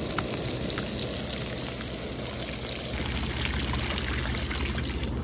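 Breaded flounder fillets sizzling in hot oil in a frying pan, with small crackles. About three seconds in, water pours out of a cooking pot in a steady stream and splashes into shallow water.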